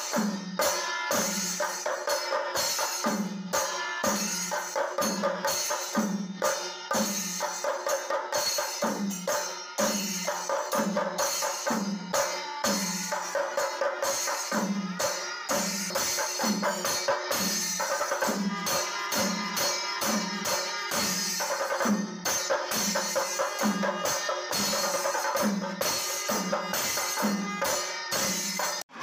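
Kerala temple percussion ensemble (chenda melam): chenda drums beaten with sticks in a steady, driving rhythm, with elathalam hand cymbals clashing on every stroke and wind instruments holding long notes above.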